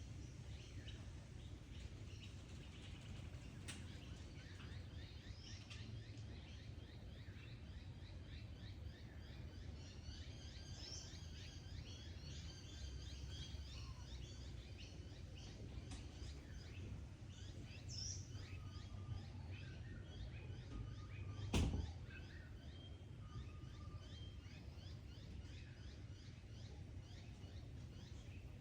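Bush ambience: a steady low wind rumble under many small birds chirping and twittering. A single sharp knock stands out about two-thirds of the way through.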